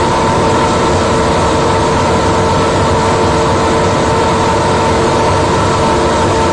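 Steady, loud mechanical hum and rush with two constant tones, unchanging throughout.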